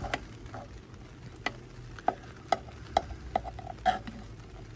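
Metal spoon scraping and clinking against the inside of a cast-iron Dutch oven as it scoops out dump cake, a series of sharp clinks that come thicker from about two seconds in.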